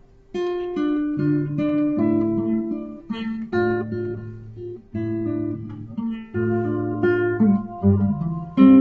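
Acoustic guitar playing slow chords and picked notes, beginning abruptly about a third of a second in.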